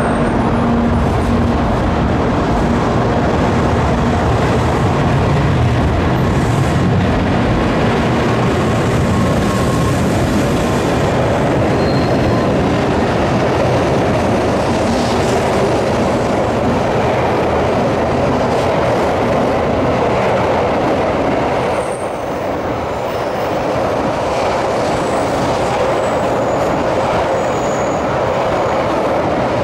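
N700-series Shinkansen trains moving through the station at platform speed: a steady, loud rumble and hiss of wheels on rail and running gear, with a few brief faint high squeals.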